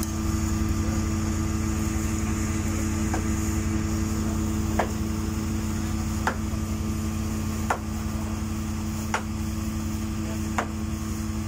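Steady drone of running site machinery with a sharp knock repeating evenly about every one and a half seconds.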